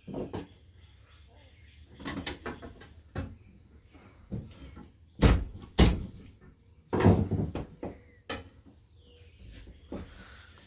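Irregular clunks and knocks of a new motorcycle tire and tools being worked against the metal rim while the bead is forced on by hand, about eight in all, the loudest a quick pair a little past halfway and another just after.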